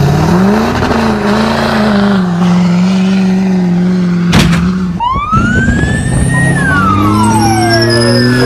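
Lifted diesel pickup's engine running hard as it pulls away pouring black smoke, a steady droning note after a brief rise and fall near the start. After a sharp click about four seconds in, wailing siren-like tones rise and fall over a lower engine note.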